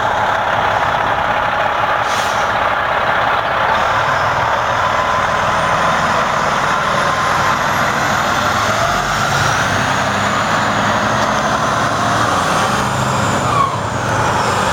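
Freightliner Coronado semi-truck tractor's diesel engine running as the truck moves slowly along, a steady loud drone with faint rising and falling whines, and a short louder burst near the end.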